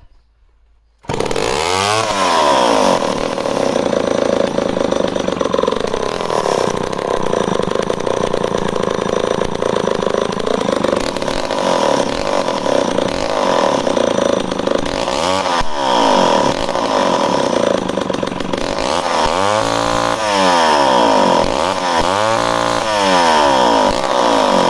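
Homelite C-51 two-stroke chainsaw with a fresh engine running. It comes in abruptly about a second in, then revs up and down on the throttle several times, most often in the last few seconds.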